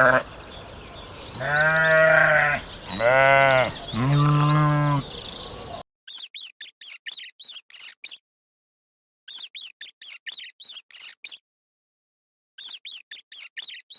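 A sheep bleating: three drawn-out bleats in the first five seconds. Then, after a sudden cut, three bursts of rapid high-pitched chirping, each burst about two seconds long.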